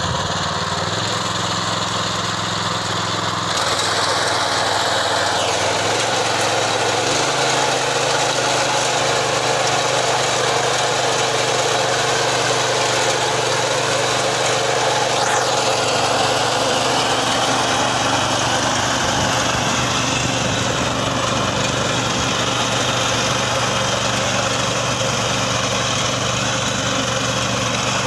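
Small petrol engine of a walk-behind fodder reaper running steadily while its cutter bar mows dry grass. The engine note steps up a few seconds in, then holds steady under load.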